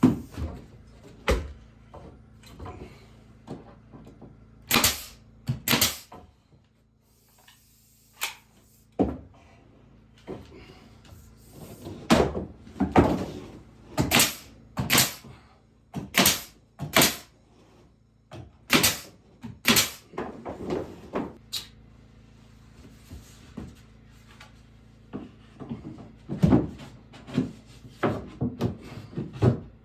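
Wooden knocks and thuds from hand carpentry on a log cabin's interior: irregular sharp strikes, several coming in pairs about a second apart, with quieter handling noise between them.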